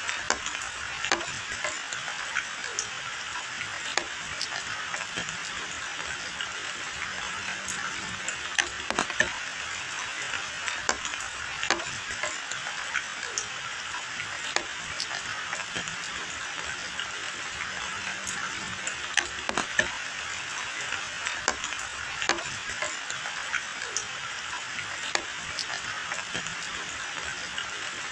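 Steady rain falling on a wet asphalt lane and roadside bushes, with irregular sharp taps of drops landing close by.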